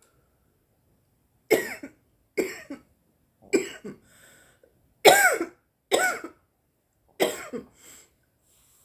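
A woman coughing in a fit after inhaling cannabis smoke: six harsh, voiced coughs spread over about six seconds, the loudest near the middle.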